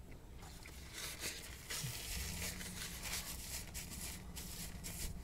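Soft, irregular crackling and rustling from a fast-food chicken sandwich and its paper wrapper being handled, over a low steady hum.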